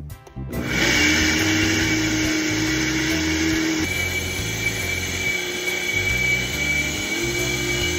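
Blender motor starting about half a second in and running at high speed, pulverising dehydrated moringa leaves into powder. Its tone shifts about four seconds in as the leaves break down.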